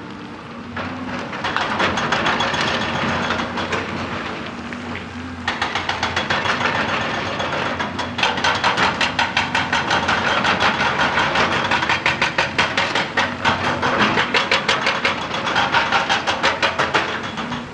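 Excavator-mounted hydraulic rock breaker hammering rock, with the excavator's diesel engine running under load. After about five seconds it starts firing a rapid, even stream of blows that runs until just before the end.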